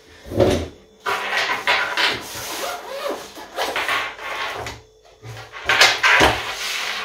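A zip being run around a padded table-tennis bat case, a series of rasping strokes, with rubbing of the fabric and a knock on the table as the case is handled and opened; the loudest strokes come about six seconds in.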